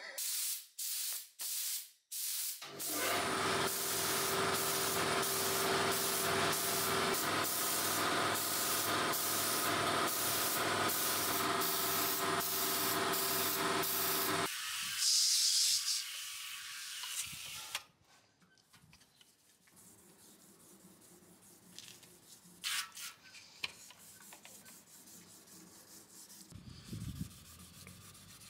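Air spray gun painting a motorcycle fuel tank: a few short trigger bursts of hiss, then a long continuous spray hiss over a steady mechanical hum, ending in more short bursts. After that, the faint rubbing and scraping of a sanding block wet-sanding the painted tank.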